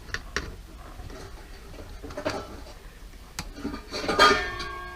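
Clicks and knocks of parts being handled during dishwasher repair, then about four seconds in a loud metallic clank that keeps ringing afterwards.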